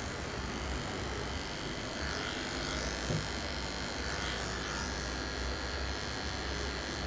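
Corded electric hair clippers buzzing steadily as they trim hair at the temple and hairline, the buzz swelling and dipping as the blade moves against the hair.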